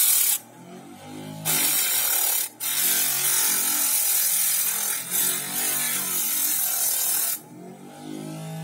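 Homemade grinder, a thin abrasive disc on a small electric motor, grinding a hand-held workpiece with a loud gritty hiss. The grinding drops away twice, about a second in and again near the end, leaving the motor's hum rising in pitch as it speeds up off load.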